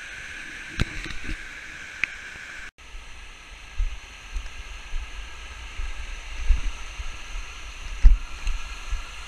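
Mountain stream cascading over rocks: a steady rushing of water. The sound cuts about two and a half seconds in, and after that the rushing goes on under an uneven low rumble on the microphone.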